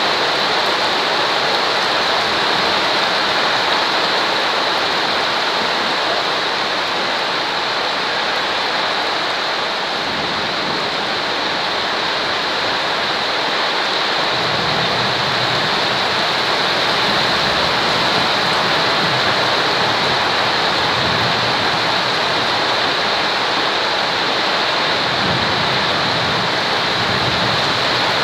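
Steady, continuous rain sound, an even hiss brightest in the upper range, used as white noise. A low rumble joins in about halfway through and comes and goes until near the end.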